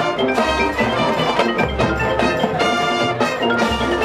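High school marching band playing its field show, with the front ensemble's pitched mallet percussion and drums prominent over the winds.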